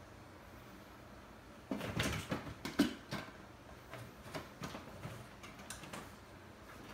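A flurry of light knocks, clicks and rustling starting about two seconds in, loudest just after it starts, then thinning to scattered taps.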